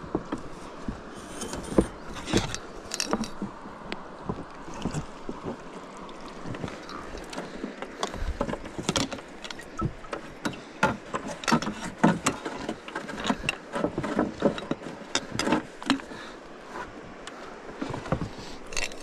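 Small boat being rowed: irregular knocks and clicks of the oars and gear in the boat over a steady wash of water.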